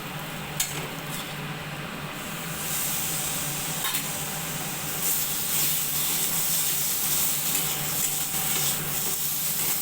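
Chicken pieces frying and sizzling in hot mustard oil and spice paste in a kadai; the sizzle grows louder about two and a half seconds in and then holds steady, with a couple of light clicks.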